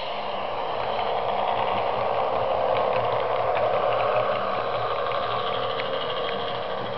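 A model train running on the layout's track, its motor and wheels giving a rattling mechanical whirr that builds to a peak about halfway through and then eases off as it passes close by.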